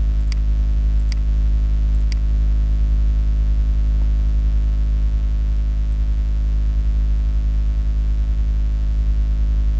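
Loud, steady electrical hum with a stack of even overtones, unchanging throughout. A few faint clicks fall in the first two seconds.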